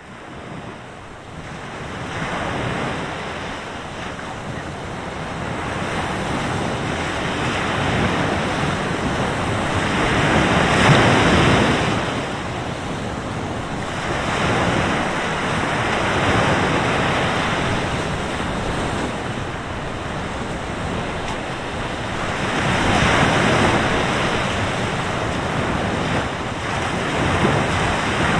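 Mediterranean surf breaking and washing up a beach in a strong wind, fading in over the first couple of seconds. The rush swells and eases as each wave comes in, loudest about eleven seconds in and again near twenty-three seconds.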